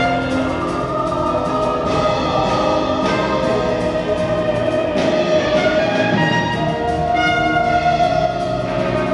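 Orchestral music accompanying a stage dance number, with long held melody notes over a steady accompaniment.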